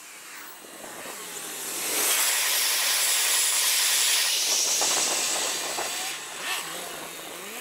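Freight train of hopper wagons rolling over a level crossing, its wheel-and-rail noise sped up sixfold into a dense hiss. It builds over the first two seconds, holds, and fades in the last part as the train clears.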